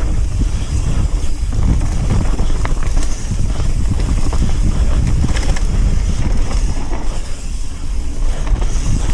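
Mountain bike riding a rough trail: wind buffeting the microphone over a low tyre rumble, with scattered clicks and knocks from the bike over the bumps.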